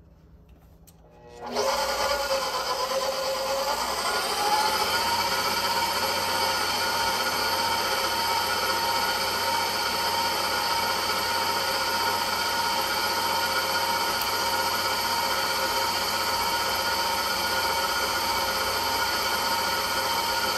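Electric stand mixer with a flat beater creaming butter and egg in a stainless steel bowl. The motor starts about a second and a half in, its whine rising in pitch for a couple of seconds as it gets up to speed, then runs steadily.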